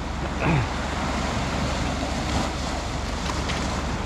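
Surf washing steadily over a rocky shoreline, with wind buffeting the microphone.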